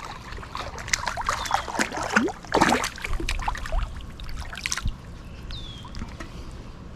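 Irregular water splashing and dribbling, busiest about two and a half seconds in and dying down after about five seconds: a hooked smallmouth bass thrashing at the surface as it is brought in.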